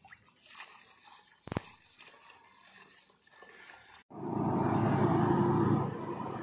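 Liquid trickling faintly through a plastic strainer into a sprayer tank, with one sharp click about a second and a half in. About four seconds in, a tractor-drawn blower sprayer comes in loud, its engine and fan running steadily, dropping somewhat near the end.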